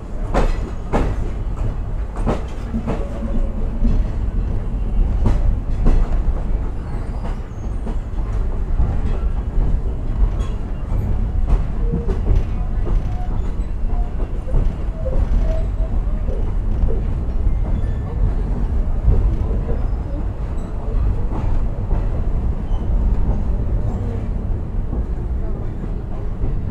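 Third-class passenger train running, heard from aboard: a steady low rumble of the wheels and carriage, with a cluster of rattling knocks in the first few seconds and lighter clicks after.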